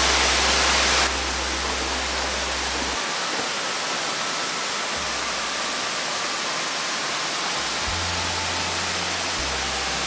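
Steady rush of small waterfalls pouring into a pool, a little louder for the first second, with faint background music with low bass notes underneath.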